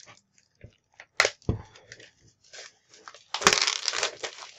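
Clear plastic shrink-wrap being torn and pulled off a board game box, crackling and crinkling. There is a sharp tear about a second in with a dull knock just after, and a loud burst of crumpling plastic near the end as the wrap comes free.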